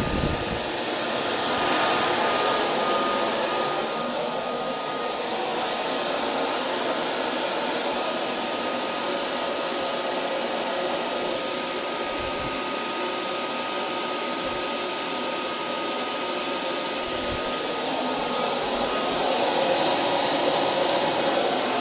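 Blower of a DIY fluid-bed coffee roaster running steadily, forcing heated air up through a glass chamber of green coffee beans early in the roast, a constant rush of air with a faint steady whine.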